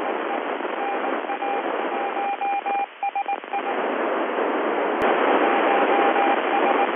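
Icom IC-705 receiving the ISS FM repeater downlink: steady FM static hiss with a thin tone that keeps breaking up and cutting in and out. The hiss dips briefly about three seconds in, and a sharp click comes about five seconds in.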